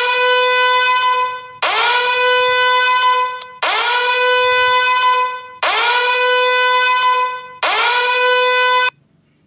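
A horn-like tone blown five times, evenly about two seconds apart. Each blast lasts about a second and a half, scoops up in pitch at its start, then holds one steady note.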